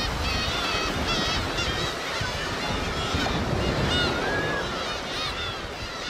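Many black-tailed gulls calling over one another, short rising-and-falling calls several times a second, over a steady low rushing noise.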